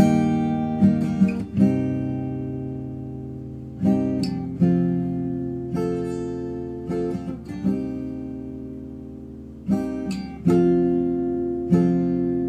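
Background music of strummed chords, each struck sharply and left to ring and fade before the next strum.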